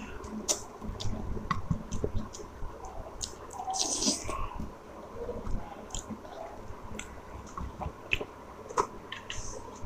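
Close-miked wet chewing and mouth smacking, with many small sharp clicks, as a person eats chicken curry and gravy. There is a brief hissy slurp about four seconds in.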